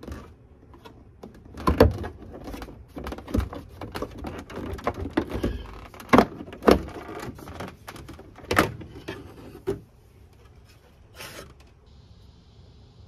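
Plastic interior side trim panel of a BMW X5 (E70) being worked loose and pulled off by hand: a run of sharp plastic clicks and knocks, loudest around six seconds in, dying away after about ten seconds.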